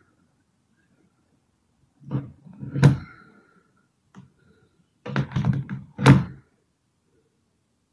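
A sleeping girl snoring hard: two rough, rattling snores, the first about two seconds in and the second about five seconds in.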